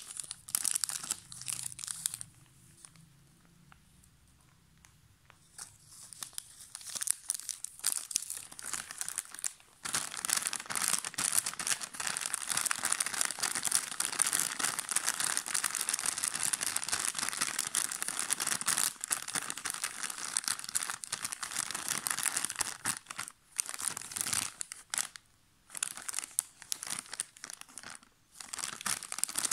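Crinkly plastic snack packets and a foil chocolate wrapper being handled, pressed and rubbed by fingers: dense crinkling and crackling. It is faint for a few seconds near the start, then runs almost without a break through the middle, with short pauses near the end.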